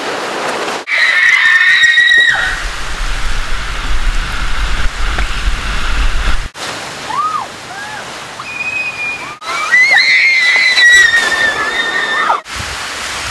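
Water rushing and splashing down a mat-racing water slide as riders on foam mats go down, with high-pitched screams twice, each lasting one to two seconds, and short whoops in between. A low rumble lasts a few seconds while a mat runs through the enclosed dark tube. The sound changes abruptly several times.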